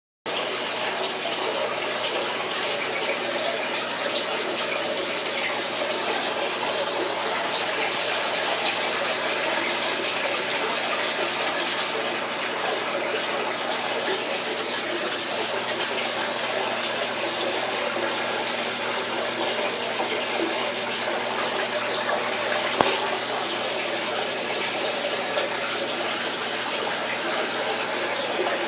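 Aquarium water running steadily, an even rushing with a faint low hum beneath. There is one sharp click about 23 seconds in.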